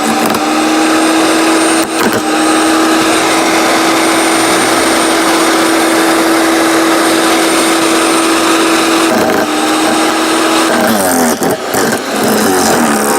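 A 15-amp electric wood chipper shredder motor runs with a steady hum while branches are fed through, with a brief crack about two seconds in. Near the end its pitch sags and wavers with knocking and grinding as a bigger branch loads the motor down while it is chewed up.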